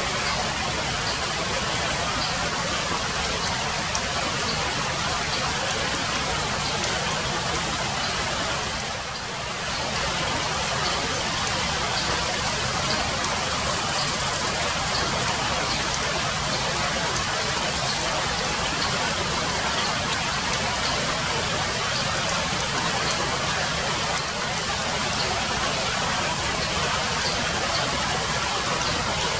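Steady hiss of rain falling on foliage, easing briefly about nine seconds in.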